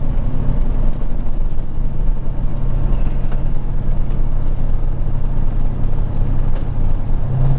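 Peterbilt 379 truck's diesel engine and road noise while driving, a steady drone with a low hum.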